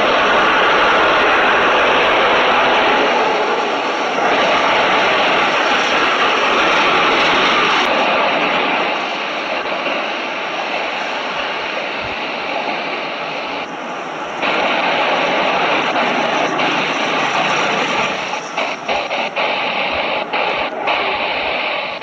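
Jet engines of a twin-engine widebody airliner at takeoff power on its takeoff roll: a loud, steady rushing sound. Several short crackles come near the end.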